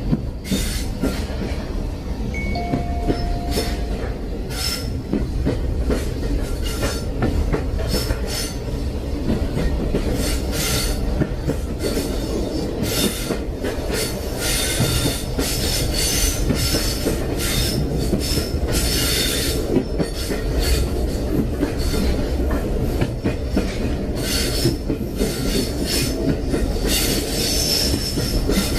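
Train rolling along the rails with a steady low rumble, its wheels squealing and clattering in many short, irregular high-pitched bursts. A brief steady squeal tone comes about three seconds in.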